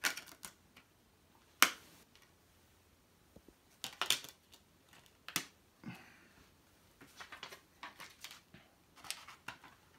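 Blu-ray steelbook case and its discs being handled: scattered short clicks and taps, the sharpest about one and a half seconds in, with a cluster of lighter ones in the last few seconds.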